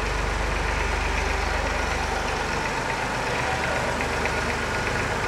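Old tractor engine running steadily with a low, even hum and a light clatter.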